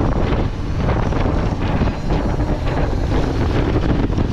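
Wind buffeting the microphone of a Sodi go-kart driving at speed, with the kart's engine running underneath.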